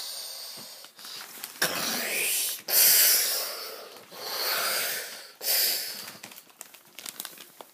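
A child making a whooshing sound effect by mouth: four long, hissing rushes of breath in a row.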